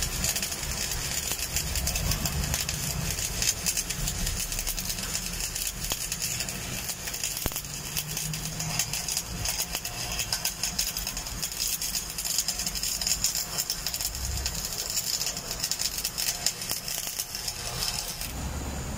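Electric arc welding a steel flange onto a pipe elbow: the arc crackles steadily with dense rapid clicks, then breaks off near the end.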